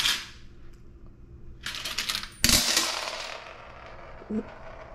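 Quarters spilling and clinking out of a candy vending machine's opened coin compartment: a short rattle, then about two and a half seconds in the main rush of coins, which jingles on and fades over about a second.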